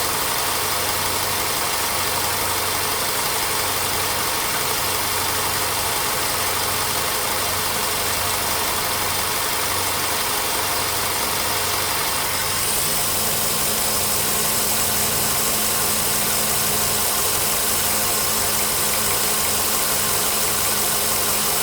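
Volkswagen Polo Sedan petrol engine idling after a cold start, running rough, with a faint knock that has almost died away as it warms. About 13 seconds in the sound changes, with more hiss and a steadier hum.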